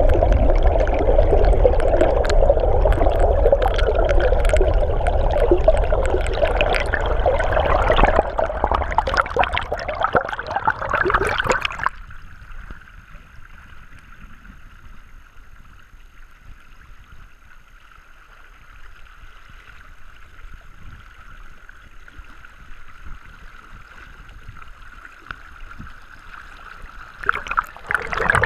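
River water heard with the microphone under the surface: loud, muffled rushing and gurgling. About twelve seconds in, the sound drops suddenly to a quieter steady hiss as the camera comes up to the surface. Near the end it turns loud and muffled again as the camera goes back under.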